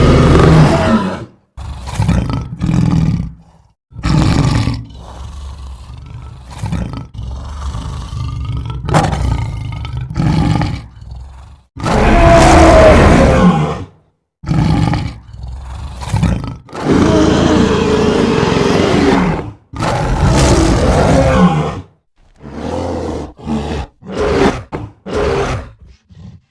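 A series of fictional dinosaur roar sound effects, separate calls of varying length with short gaps between them. The longest and loudest roars come around the middle, and shorter calls follow near the end.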